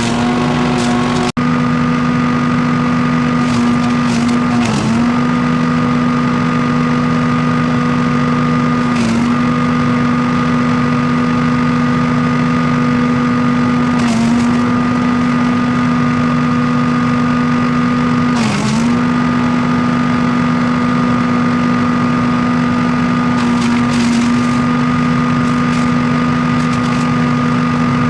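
Wood chipper's small gasoline engine running steadily at high speed, its pitch sagging briefly and recovering about every four to five seconds as it takes load.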